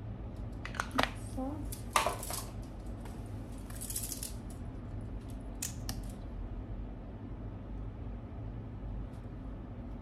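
A few short clinks and rattles of glass bangles and makeup packaging being handled, bunched in the first six seconds, over a low steady hum.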